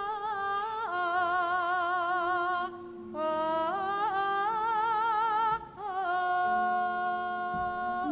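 A sinden (female Javanese singer) singing a slow vocal line of long held notes with wide vibrato, stepping between pitches and breaking off twice for breath.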